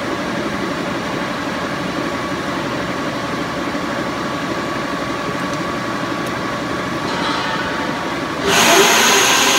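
Bullard vertical turret lathe running with a steady mechanical hum as its large table winds down from 57 RPM to a standstill. About eight and a half seconds in, a loud hiss starts suddenly and lasts nearly two seconds.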